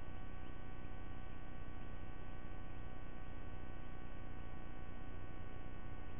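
Steady electrical hum and buzz made of several constant tones over a low noise bed, unchanging throughout: the background noise of the nest camera's audio feed.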